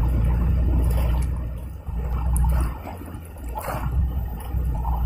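Steady rush of a swollen, fast-flowing muddy river, overlaid by a heavy, gusting rumble of wind on the microphone that drops away briefly about two and three seconds in.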